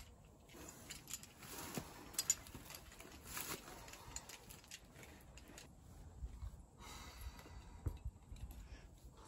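Faint, scattered metallic clinks and rustles of trad climbing gear such as cams and carabiners on a rack.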